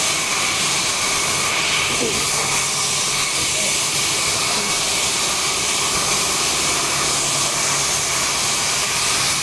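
Sawmill machinery running: a steady, even rushing noise with a low hum under it.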